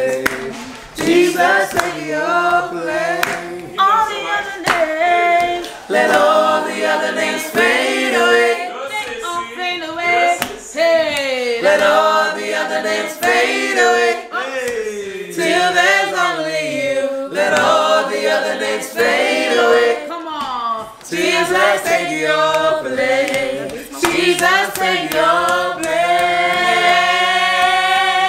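A small group of men and women singing a gospel worship song together without instruments, with gliding runs and a long held note near the end.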